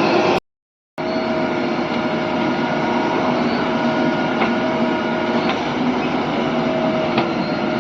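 Heavy diesel machinery running steadily with a constant whine-like tone over the engine sound and a few faint clicks. The sound drops out completely for about half a second near the start, then resumes unchanged.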